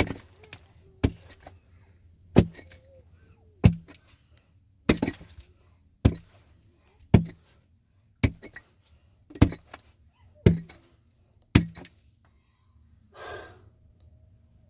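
Eleven hard, sharp blows at a steady pace of about one a second, each with a brief ring after it. They stop near the end, followed by a short rough noise lasting about half a second.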